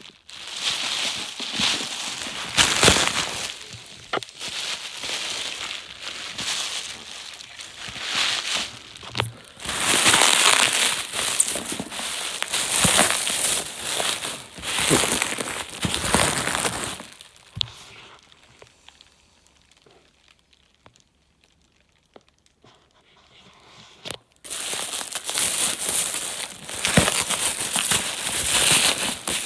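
Packing material crinkling and rustling in irregular bursts as a shipping box is unpacked by hand, with a quiet stretch of several seconds past the middle before the rustling resumes.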